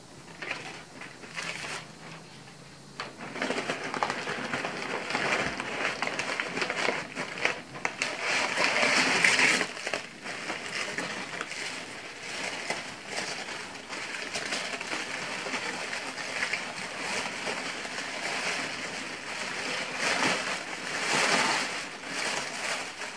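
Kraft packing paper and honeycomb paper wrap rustling and crinkling as they are handled and pulled apart, louder from about three seconds in.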